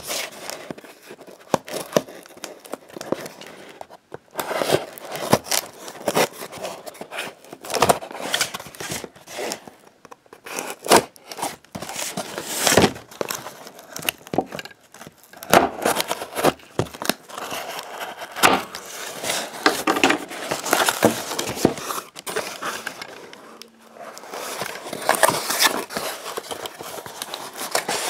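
Hands opening a cardboard ornament box: irregular crinkling, scraping and tearing of cardboard, packaging and tape, pausing briefly twice.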